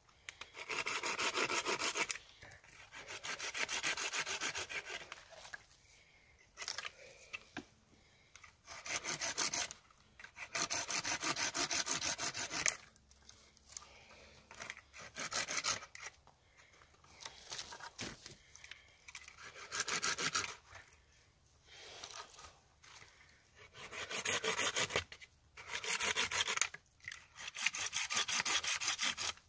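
Hand-held folding saw cutting through a slender tree trunk in bursts of quick back-and-forth strokes, each run lasting a second or two, with short pauses between runs.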